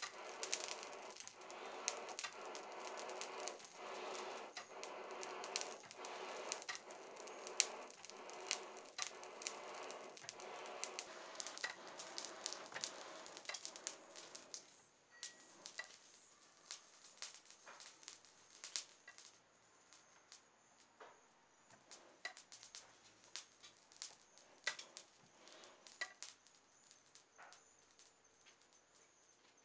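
Charcoal forge fire crackling and popping as sparks fly, with a rhythmic rush of air from a hand-worked box bellows swelling about every two seconds. About halfway through the air blast stops, and only sparse crackles go on as the fire dies down.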